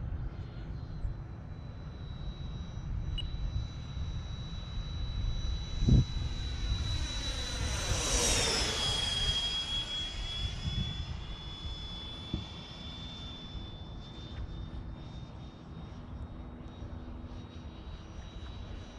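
High-pitched whine of the Freewing A-4 Skyhawk's 80 mm electric ducted fan. It grows louder as the jet approaches and drops in pitch as it passes about eight seconds in, then fades. A low wind rumble on the microphone runs underneath, and there is one sharp knock about six seconds in.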